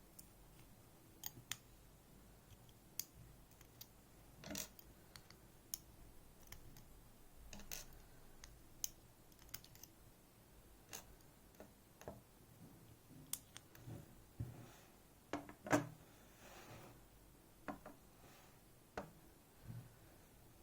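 Faint, irregular small metallic clicks and taps as the driver pins are taken out of a disassembled JPM Surf sidebar lock with small tools.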